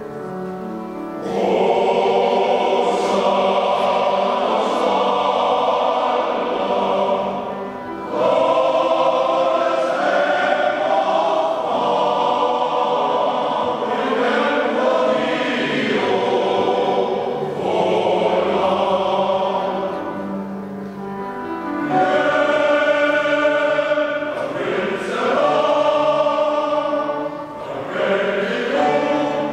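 Male voice choir singing in full harmony in a church, in long sustained phrases with short breaks between them.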